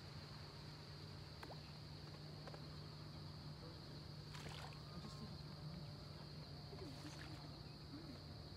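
Faint marsh ambience: a steady high-pitched insect chorus over a low steady hum, with a few soft, short calls late on.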